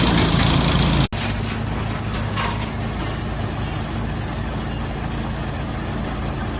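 Drum wood chipper working: a loud, dense chipping noise that breaks off abruptly about a second in, followed by the machine running steadily with a low hum.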